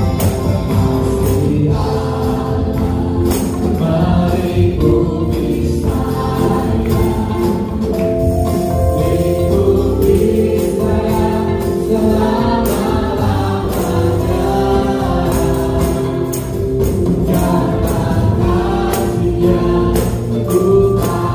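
Christian worship music: a choir singing a gospel song over instrumental accompaniment, with a steady beat of percussion hits.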